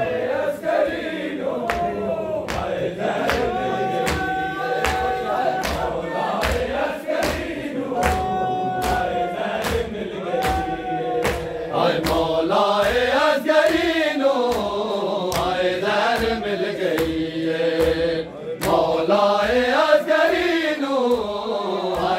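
A group of men chanting a noha (lament) in unison, with swooping, rising and falling lines, over the steady rhythmic slaps of bare-handed chest-beating (matam) by the mourning crowd.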